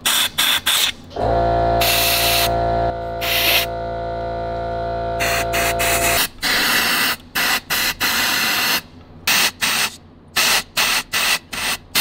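Compressed air from a blow gun fired in repeated short blasts through a Webasto Air Top 2000 STC gas heater, clearing out carbon soot buildup. A steady hum runs under the blasts from about one second in and stops about six seconds in.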